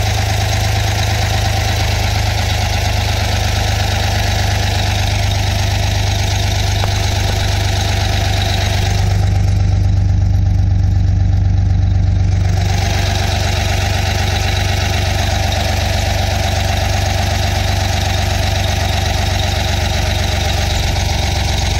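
Turbocharged Detroit Diesel 6V92, a 9-litre two-stroke V6 diesel, idling steadily. For about three seconds in the middle the sound turns deeper and muffled, then returns to the same steady idle.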